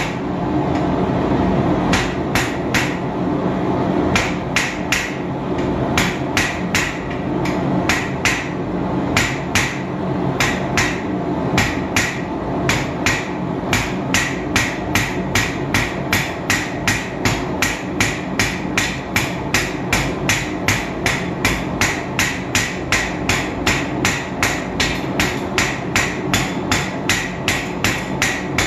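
Hand hammer striking red-hot round steel bar stock on an anvil while drawing out a taper. The blows are uneven at first, then settle into a steady beat of about two a second, each with a short metallic ring, over a steady low background noise.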